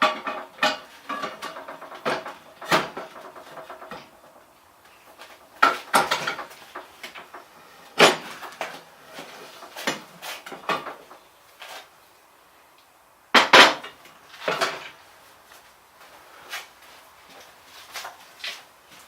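Metal tools and tyre-changer parts being handled: a ringing metallic rattle for the first few seconds, then scattered clanks and knocks, the loudest about 8 and 13.5 seconds in.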